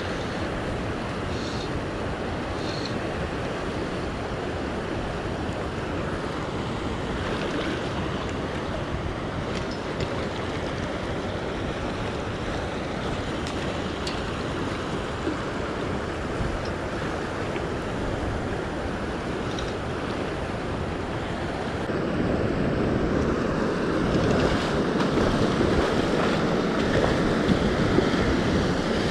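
Madison River current rushing steadily, with wind buffeting the microphone; the noise grows louder about three-quarters of the way through.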